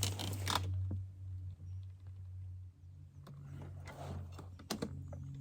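A few faint, short clicks and knocks of equipment being handled, over a low steady hum.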